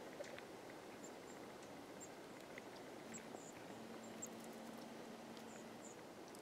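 Faint wind and ambient hiss with scattered short, high chirps of small songbirds, a few light clicks, and a faint steady hum for a few seconds in the middle.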